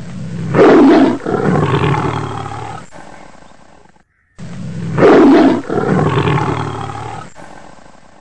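Tiger roar, heard twice in identical copies: a loud roar about half a second in that fades over some three seconds and then cuts off. The second copy begins about four and a half seconds in.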